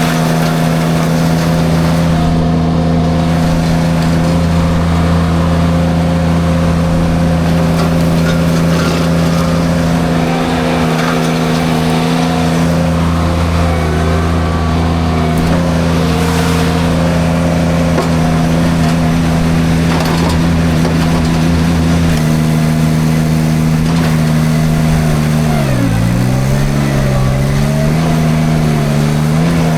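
Derette V1000 mini skid steer running hard with its forestry mulcher, the engine note steady at high speed. About 26 seconds in, the pitch drops sharply and climbs back, the engine bogging under load and recovering.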